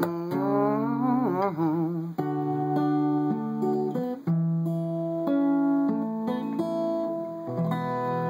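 Acoustic guitar playing the closing chords of a song, strummed and picked, the chord changing every second or so. A wordless sung line with wavering pitch carries over it for about the first two seconds, then the guitar plays alone.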